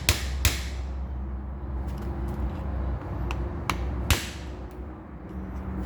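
Hammer taps driving a new lower steering column bearing onto the shaft to seat it: two strikes at the start, a few lighter scattered taps, then one harder blow about four seconds in.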